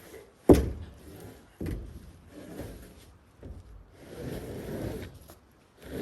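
Heavy wooden thud as a big milled cedar slab is lifted and knocked against other boards about half a second in, a second knock about a second later, then rustling and scraping as the slab is shifted and carried.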